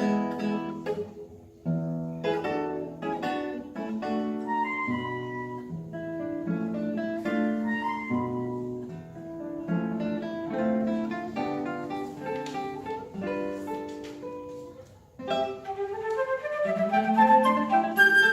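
Flute and nylon-string classical guitar duo playing a lively classical piece, the guitar's plucked notes to the fore. About fifteen seconds in the music drops away briefly, then picks up with a rising run.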